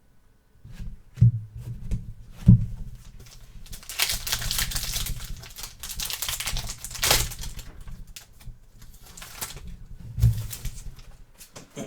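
Trading cards being handled at a table: a few sharp knocks, with a stretch of cards sliding and rustling against each other in the middle, over a low steady hum.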